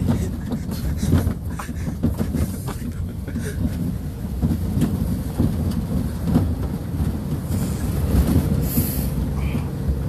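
Pickup truck driving along a bumpy dirt track, heard from its open bed: a steady low rumble of engine and tyres with irregular knocks and rattles from the body and bed as it jolts over the ruts.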